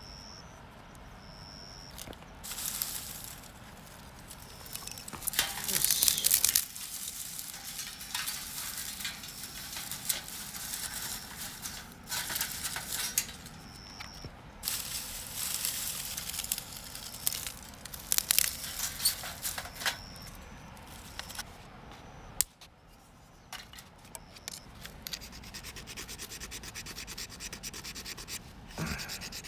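Repeated rustling and scraping from fire-starting: kindling and tinder being handled and struck to light a campfire in a fire pit, in irregular noisy bursts.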